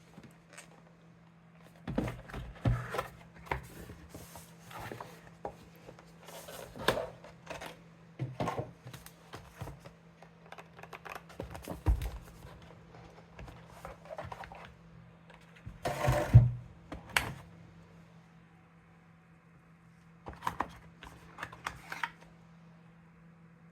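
Unboxing a Corsair K65 Plus keyboard: irregular knocks, clicks and rubbing as the packaging and keyboard are handled, in clusters with short pauses between them, loudest about two-thirds of the way in.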